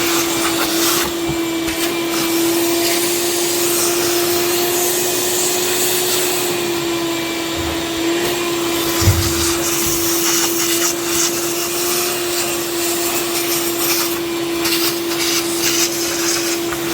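Vacuum cleaner running steadily with a high whine and rushing hiss as it sucks up burnt debris and charred intake-manifold remnants from a fire-damaged engine. There is a brief low thump about nine seconds in.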